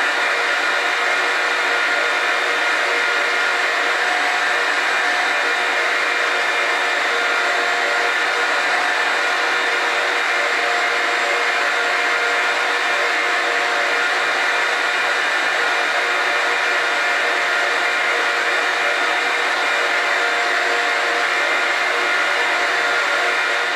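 Stand mixer's motor running steadily, its balloon whisk beating Swiss meringue egg whites in a metal bowl, with a constant whine of several steady tones over the motor's hum.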